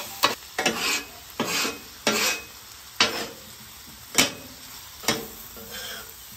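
Metal spatulas scraping and clacking on a steel flat-top griddle as potatoes, sausage and steak are folded into scrambled eggs. There are repeated strokes, roughly one a second, over a steady sizzle of frying food.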